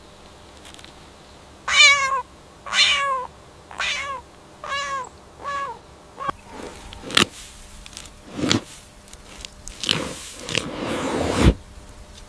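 A cat meowing five times in quick succession, each meow short with a falling pitch, followed by several noisy rustling scuffs and a sharp click.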